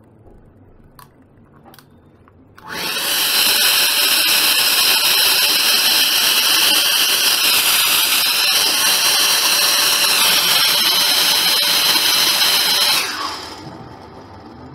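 A small high-speed motor runs with a loud, steady high whine for about ten seconds, then stops near the end. Two faint clicks come shortly before it starts.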